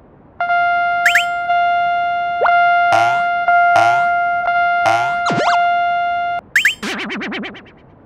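Electronic railroad crossing warning bell: one chime struck about once a second and left to ring, with cartoon sound effects gliding up and down in pitch over it. The bell stops about six and a half seconds in, and a quick wobbling glide follows.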